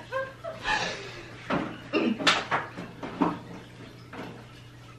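A refrigerator door being handled, opening and closing, with short bursts of giggling around it.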